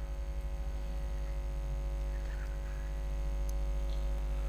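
Steady electrical mains hum with a low buzz and its overtones, picked up on the recording between the narrator's sentences.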